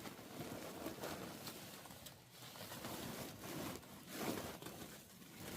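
Chickens clucking softly and murmuring while they feed, with faint scratchy rustling.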